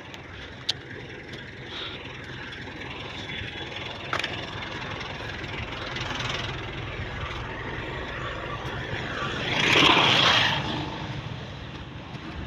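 Steady low engine-like hum with a sharp click and a knock, and a loud rushing noise that swells up and dies away about ten seconds in.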